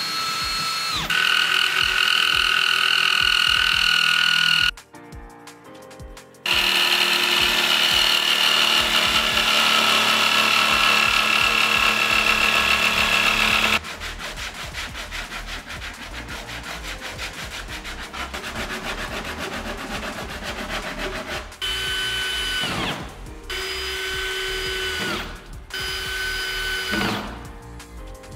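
Cordless drill whining in long runs as it bores into OSB board, then a stretch of a hand sander working a pine board, then three short drill runs that each wind down as the trigger is let go. Background music with a steady beat runs underneath.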